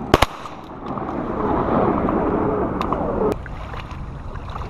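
Two shotgun blasts a split second apart just after the start. They are followed by a couple of seconds of loud rushing noise that cuts off suddenly.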